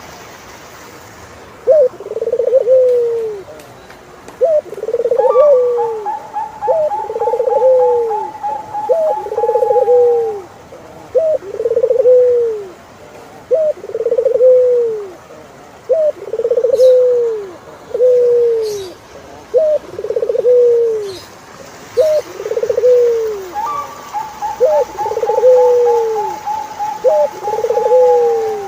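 Turtle doves cooing: a low two-part coo, a short rising note followed by a longer falling one, repeated steadily about every second and a half. Twice, a higher rapid run of notes, sliding slightly downward, joins in for about five seconds.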